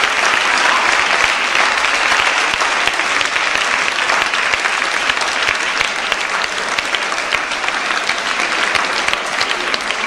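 Audience of students applauding: many hands clapping in a dense, steady patter that eases off slightly near the end.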